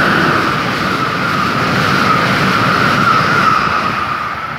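Amtrak Northeast Regional passenger train, with a Siemens ACS-64 electric locomotive and Amfleet coaches, passing at speed: a loud rush of wheels on rail and air, with a high steady whine that sinks slightly in pitch. It fades near the end as the last car pulls away.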